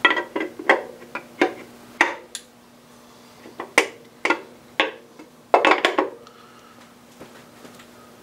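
A dozen or so sharp metal clinks and knocks in irregular bursts as a cast-metal oil pump is handled and fitted against the crankcase of a BMW 325xi inline-six engine block, stopping about six seconds in.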